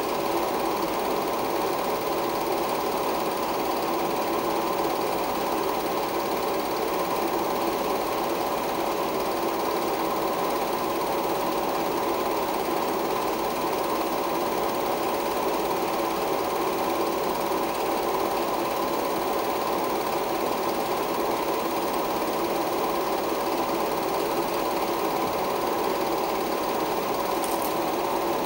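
16mm film projector running steadily, playing a silent film.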